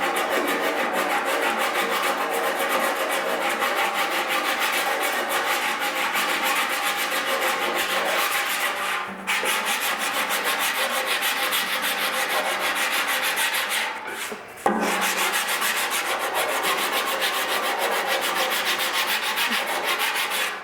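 Body filler over a metal dent being sanded with 40-grit peel-and-stick sandpaper: a steady sanding noise with a low hum underneath. It stops briefly about nine seconds in and again near fourteen seconds.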